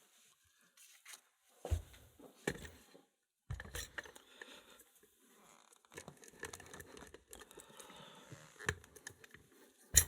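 A small Mul-T-Lock cylinder being handled and clamped into a bench vise: a few sharp knocks and clicks with scraping and rustling between them.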